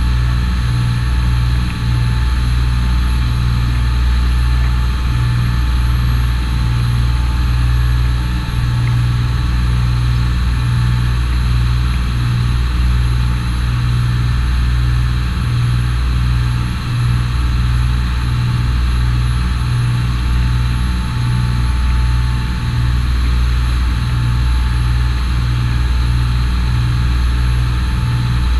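Charter fishing boat's engine running steadily, a deep rumble with a constant hum above it.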